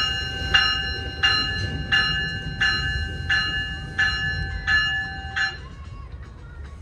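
Locomotive bell ringing as a train departs, struck steadily about three times every two seconds and stopping about five and a half seconds in, over the low rumble of the train.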